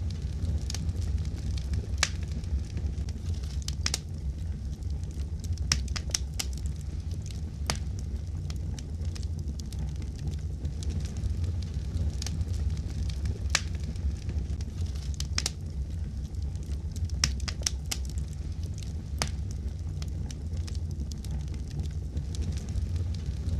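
Fire crackling in a fireplace: a steady low rumble of flames with irregular, sharp pops and snaps.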